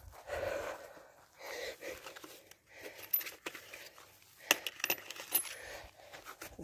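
Clothing rubbing against the microphone, then several light metallic clinks and jingles with a high ring from about three seconds in.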